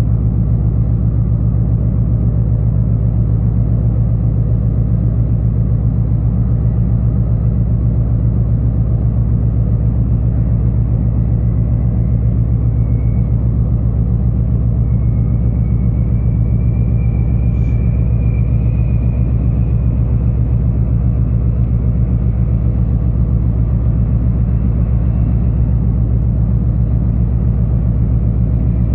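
Steady low rumbling drone of a ship's engines and machinery, unchanging throughout, with a faint thin whistle drifting slightly upward midway.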